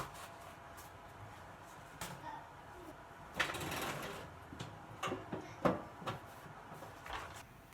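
Household objects being handled: scattered light clicks and knocks, with a brief noisy scrape about three and a half seconds in and two sharper knocks a little after five seconds.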